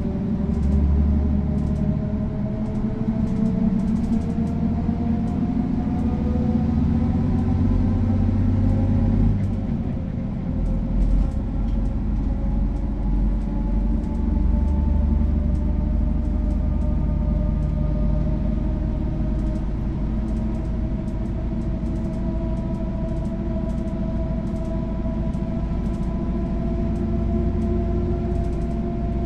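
MAN SL 200 bus's diesel engine and manual gearbox accelerating, the engine note and gear whine climbing steadily in pitch. About nine and a half seconds in there is a gear change with a brief dip, after which the pitch starts lower and climbs slowly again.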